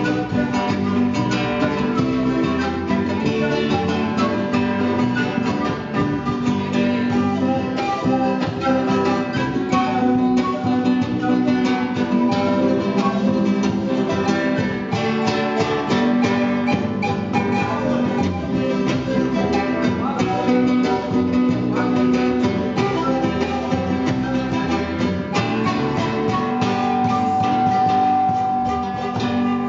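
Live Andean-style folk music: an acoustic guitar and a charango playing a lively strummed tune together, with a long held note near the end.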